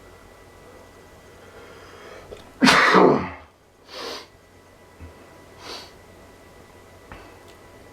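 A man's loud allergy sneeze, brought on by pollen: a rising breath in, then one loud sneeze about two and a half seconds in, followed by two shorter, quieter breathy sounds.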